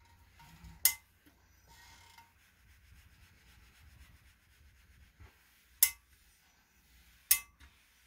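Heavy industrial steam iron pressing iron-on interfacing onto fabric: quiet rubbing, with three sharp knocks from the iron being handled, one about a second in and two close together near the end.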